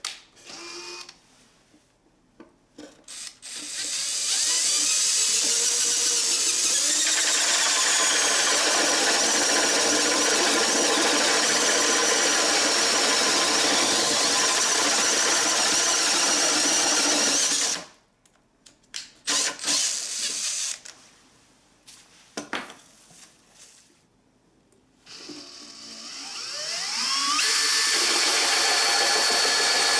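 Makita 18V cordless drill motor spinning up with a rising whine and then running steadily. It stops, gives a few short trigger bursts, and winds up again near the end to run steadily once more.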